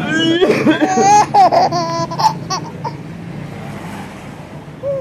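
A baby laughing hard in a run of high-pitched giggles that die away a little past halfway, over a faint low steady hum.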